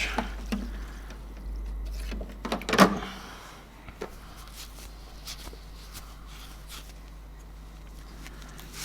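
A few knocks and clicks as the parts and basket of an ultrasonic parts cleaner are handled to get at a wrench, the loudest knock about three seconds in, then scattered light ticks over a steady low hum.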